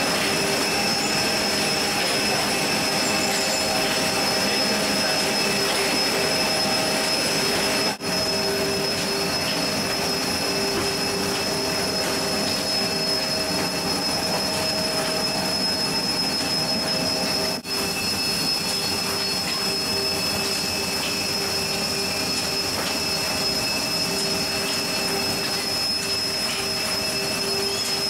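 Steady whining drone of an aircraft's machinery inside a freighter's cargo hold: a constant rush of air with several high steady tones over it, breaking off for an instant twice.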